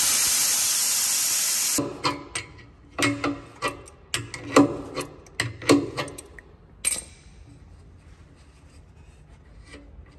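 Compressed air hissing out of a truck air tank as it is drained, cutting off suddenly about two seconds in. Then a string of short metallic clicks and scrapes as an adjustable wrench loosens a fitting in the tank.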